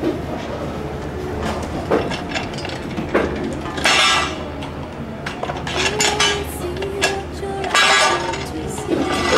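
Clinks and knocks of a crane's metal hooks and shackles and of stacked plastic fish crates as the stack is lowered and set down, over a steady low hum.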